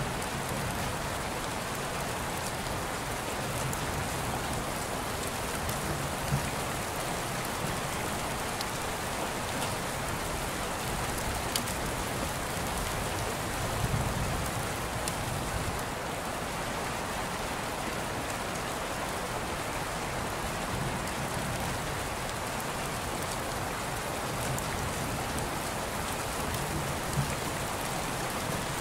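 Steady rain: an even hiss with a few faint ticks of drops.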